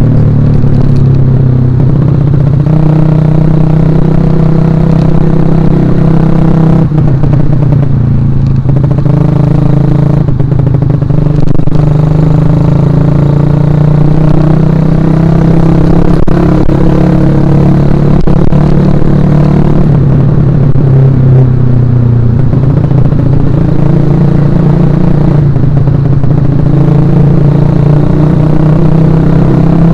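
Suzuki Shogun Axelo R's single-cylinder four-stroke engine running loud while the motorcycle is ridden, its pitch rising and falling several times with the throttle.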